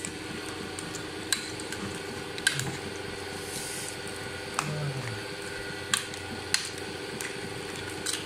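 Plastic spoon stirring a thick coconut-milk stew in a pot, knocking against the pot about six times, over a steady low hum.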